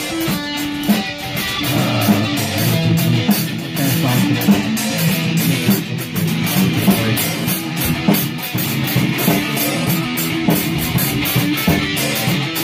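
Live rock band playing an instrumental passage: an amplified electric guitar and an acoustic drum kit, with steady drum and cymbal hits throughout.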